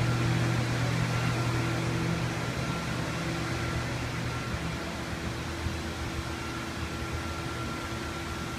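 Steady hum and air whoosh of a fan-driven machine running, with a constant low drone and a faint high whine.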